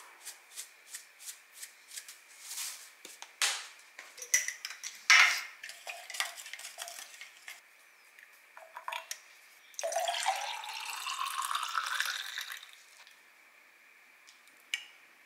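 Dried parsley shaken from a glass jar in quick light taps, about three a second. Then a few clinks and knocks of glass on the table, and a drink poured into a tall glass, the pitch of the pour rising as the glass fills.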